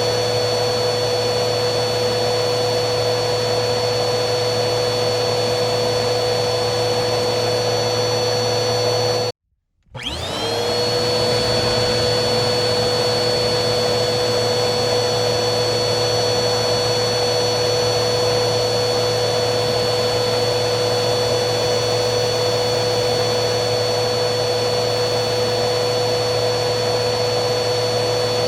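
Vacuum cleaner motor running steadily, a rushing airflow noise with a high whine. About nine seconds in it cuts out to silence for about half a second, then starts up again, its whine climbing quickly to full speed and settling.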